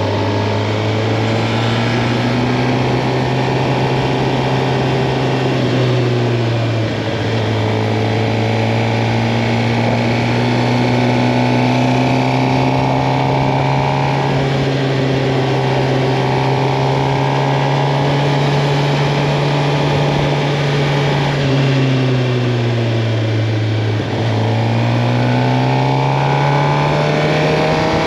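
Suzuki GSX-R750 inline-four engine under way. Its pitch climbs and then drops at a gear change a few seconds in, holds fairly steady for a long stretch of cruising, then falls off and climbs again near the end.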